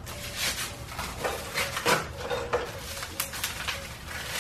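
Plastic packing wrap crinkling and rustling as it is pulled off a yoke part by hand, in a run of short scrunches.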